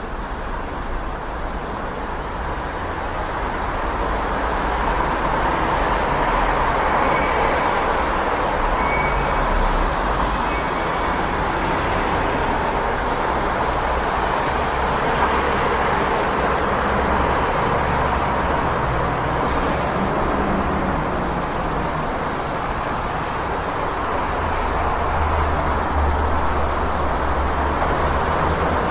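City street traffic: a continuous wash of passing vehicles with a low engine rumble that swells twice as heavier vehicles go by.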